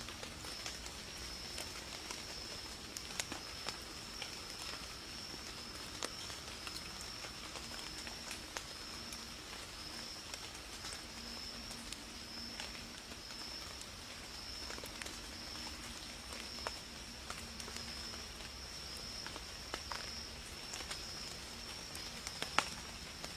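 Steady high-pitched chorus of night insects, with scattered faint clicks and knocks and one sharper click near the end.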